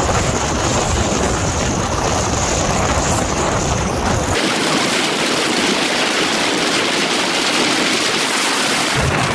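Loud steady rushing of wind and road noise from a car driving along a highway; the deep rumble drops away about four and a half seconds in, leaving a hiss.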